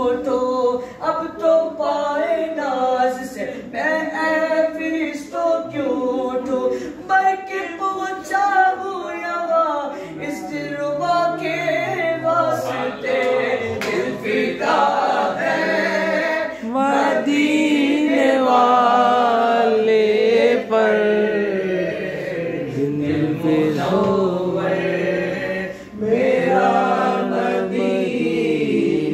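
Men's voices singing a naat, a devotional poem in praise of the Prophet, unaccompanied, with several voices together. In the middle stretch the singing moves into long held notes that waver in pitch.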